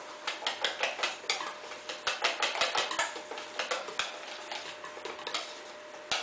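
Wire whisk beating chocolate cake batter in a stainless steel bowl, its wires clicking fast against the sides in quick bursts that thin out in the second half.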